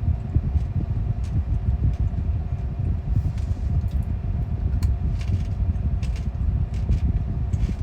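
Crunching and chewing of a whole small crab eaten shell and all, heard as scattered short crackly crunches, most of them in the second half. Under it runs a steady low rumble, which is the loudest sound throughout.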